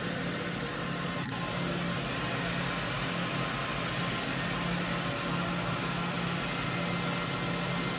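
Fadal VMC5020A vertical machining center running, a steady mechanical hum and whir. There is a single short click about a second in.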